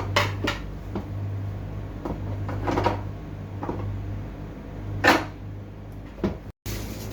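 Steady low hum, as of a vessel's running machinery, with intermittent knocks and clatter from equipment being handled. The loudest knock comes about five seconds in.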